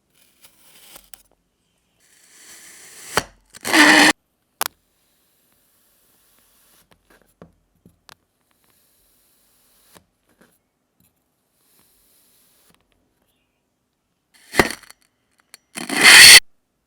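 Kinetic sand being cut and crumbling: a loud, grainy crunch that swells to a peak about four seconds in, then two shorter crunches near the end, with faint small ticks in the long quiet between.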